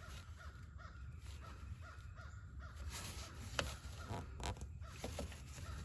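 Faint crow cawing over and over, about three calls a second, with a couple of sharp clicks about three and a half and four and a half seconds in.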